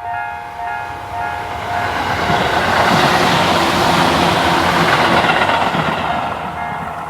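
Japanese railway level-crossing warning bell ringing in a steady repeating pattern, about two strikes a second. About two seconds in, the noise of a train passing over the crossing swells up and drowns the bell, then fades away near the end.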